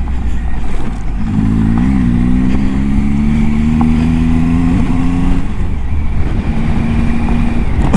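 Triumph Tiger 800 XCA's three-cylinder engine pulling on the throttle on a gravel track, over a steady low rumble of tyres and wind. The revs climb about a second in, hold steady, dip around five seconds and settle again.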